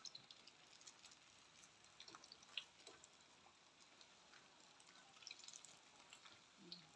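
Battered banana fritters frying in hot oil: a faint hiss with scattered small pops and crackles.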